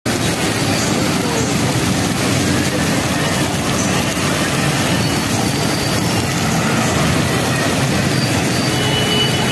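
Heavy rain pouring steadily, mixed with road traffic: buses, cars and motorbikes running and splashing through water on the road.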